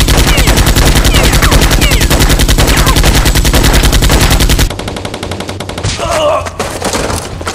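Rapid automatic gunfire in a long, continuous burst, dropping off to quieter, continuing fire about four and a half seconds in.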